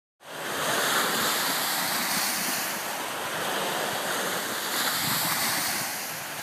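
Small waves washing onto a sandy lakeshore, with wind buffeting the microphone. It starts abruptly just after the beginning and swells gently as waves come in.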